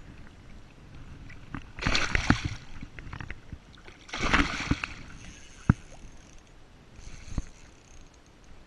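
A hooked northern pike thrashing at the surface beside a kayak: two bursts of splashing, about two seconds in and again just after four seconds. A couple of sharp single knocks follow later.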